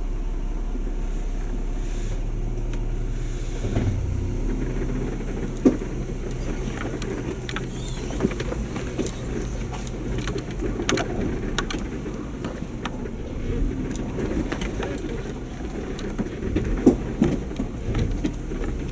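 2019 Jeep Wrangler Unlimited Sahara running at crawling speed on a rocky trail, a steady low engine hum. From about four seconds in, irregular knocks and clicks come through as the tires and suspension work over loose rocks.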